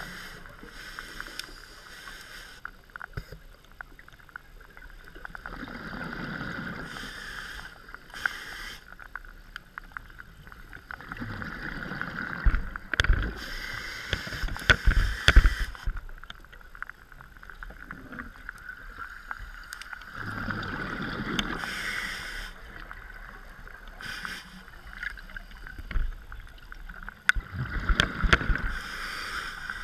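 A scuba diver breathing through a regulator, heard underwater: a hiss on each inhale and a burst of bubbling exhaust on each exhale, roughly every six to seven seconds, with the loudest bubbling about halfway through.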